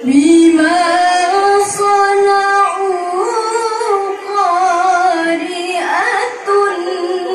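A woman reciting the Qur'an in the melodic tilawah style into a microphone: one long, ornamented phrase held on a steady pitch with wavering turns, breaking off briefly about six seconds in before going on.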